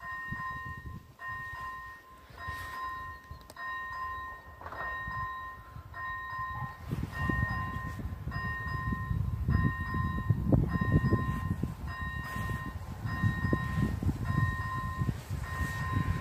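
Railway level-crossing warning bell ringing a steady electronic tone, about one ring a second, on two pitches together. About halfway through, a low, uneven rumble builds underneath it.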